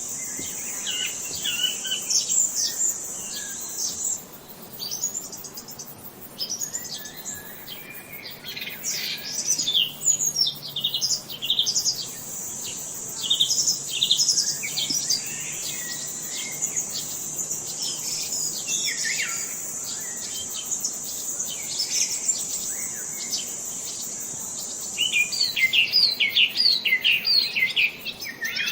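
Several songbirds chirping and singing in overlapping short high calls and sweeps. A high, steady trill sits behind them for long stretches, and a quick run of repeated chirps comes near the end.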